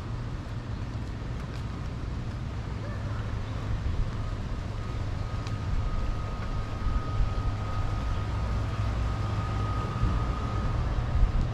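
City street ambience: a steady low rumble of traffic, with a faint steady high-pitched tone joining about four seconds in and dropping away near the end.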